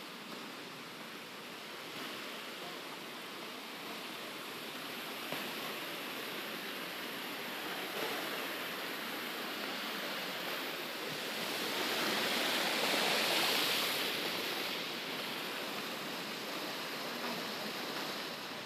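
Steady rush of water from a waterfall and the rocky stream below it, swelling louder for a couple of seconds about twelve seconds in.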